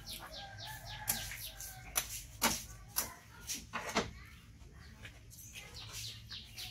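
Meat cleaver chopping green bananas off their bunch: five sharp knocks in the first four seconds. Near the end a bird gives a run of quick falling chirps.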